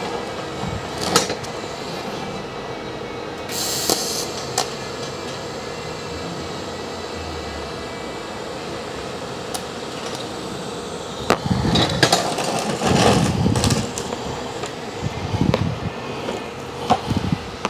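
Workshop handling sounds: tools and metal parts knocked and set down, in clusters of clanks about eleven to fourteen seconds in and again near the end, over a steady hum. There is a short hiss about three and a half seconds in.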